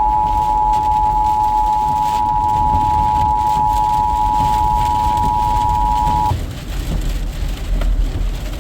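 Emergency Alert System attention signal: the steady two-tone alert sounding, then cutting off suddenly about six seconds in. Under it runs a steady rumble of rain and vehicle noise.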